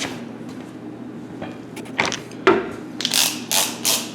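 Metal hand tools knock a few times, then a ratchet wrench is worked in quick, even back-and-forth strokes, about two to three a second.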